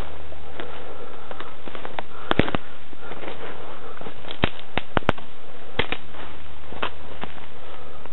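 Footsteps through dry leaf litter and brush on a forest floor: irregular crackles and snaps of twigs and leaves, over a steady low hum.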